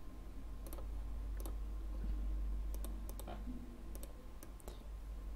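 Scattered, irregular clicks of a computer mouse and keyboard as code is edited, over a low steady hum.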